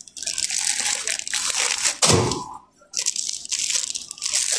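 Rough rustling and scraping noise close to the microphone, in two long stretches with a short, lower swoosh between them about two seconds in.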